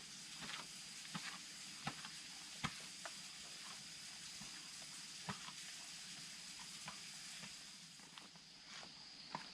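Scattered light knocks and clicks at an irregular pace, over a steady high-pitched hum.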